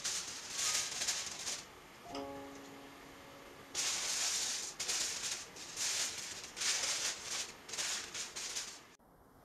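Aluminium foil crinkling in irregular bursts as it is handled and pressed over a frying pan, with a few plucked notes of background music about two seconds in.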